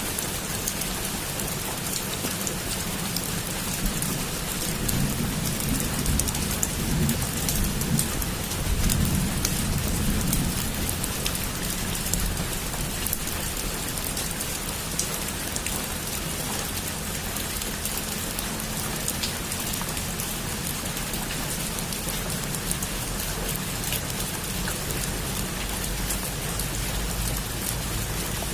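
Heavy rain falling steadily on a roof, with sharp ticks of single drops through the hiss. Thunder rumbles low, swelling between about four and eleven seconds in.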